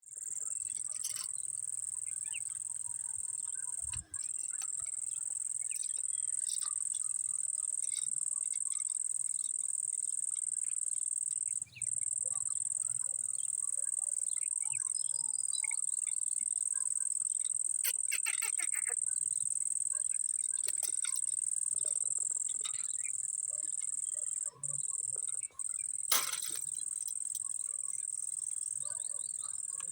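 A steady, high-pitched insect chorus, broken off a few times for an instant, with a few short sharp sounds over it, the loudest near the end.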